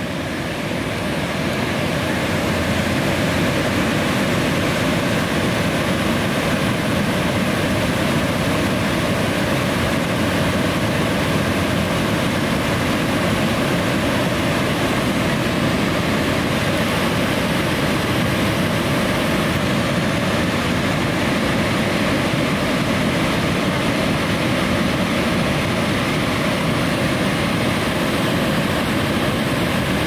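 Dundee Dam's falls on the Passaic River: water pouring over the dam with a steady, unbroken roar.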